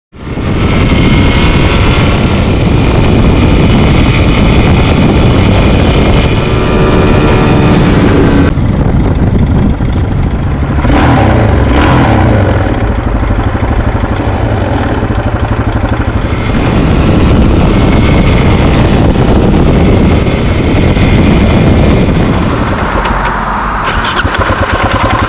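Suzuki DR-Z400SM's single-cylinder four-stroke engine running loudly, its sound changing several times. The owner says the bike has been making a clicking sound after dying on the ride home.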